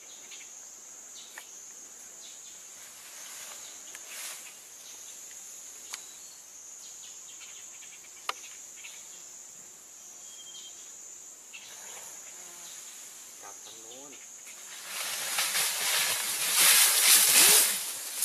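Insects buzzing steadily at one high pitch, with a few faint twig snaps. About three-quarters of the way in, loud crashing and rustling starts as the Asian bull elephant charges out through the bamboo and undergrowth.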